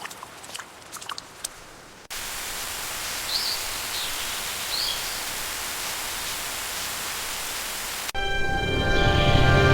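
A few faint ticks, then steady rain hiss that starts abruptly about two seconds in, with two short high chirps in it. Music cuts in near the end.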